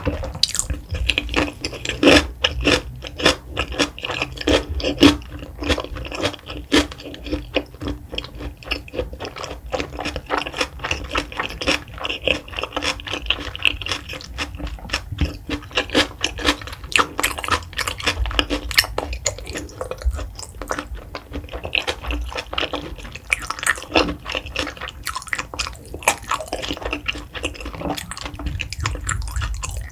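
Close-miked chewing of raw salmon sashimi coated in a creamy white sauce: a steady stream of irregular wet, sticky mouth clicks and smacks.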